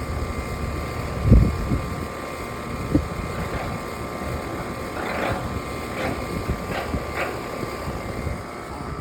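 Outdoor central air conditioner condenser unit running: a steady hum with a fan and compressor drone over a low rumble. Low thumps come about a second and a half in and again at three seconds.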